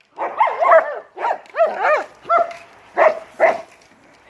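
German Shepherd giving a quick string of about eight high, whining yelps and barks, each rising and falling in pitch, the last two short and sharp, then stopping about three and a half seconds in.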